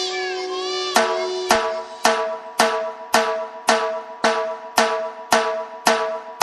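A melodic tune runs for about the first second, then dhol drums start a steady Nashik dhol beat of sharp, heavy strokes about two a second, with a sustained ringing tone under the strokes.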